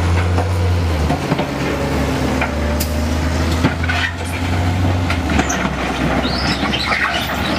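Kenworth off-highway dump truck's diesel engine running while its raised bed tips out a load of rock and dirt, with scattered knocks and rattles of falling rock. The engine note shifts about a second in and gets weaker near the end.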